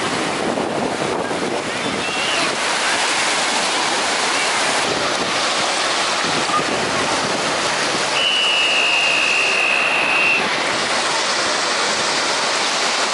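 Ocean surf breaking and washing in over the shallows, with wind buffeting the microphone. A steady high-pitched tone sounds for about two seconds about eight seconds in.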